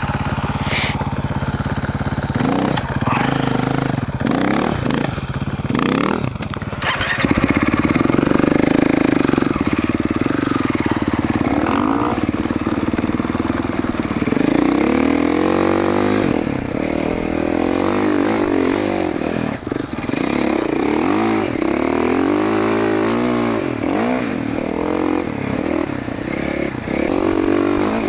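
2021 GasGas MC450F's four-stroke single-cylinder engine running close to the microphone. It runs steadily for the first several seconds, gets louder about seven seconds in, and from about halfway through revs up and down repeatedly as the bike is ridden through soft sand.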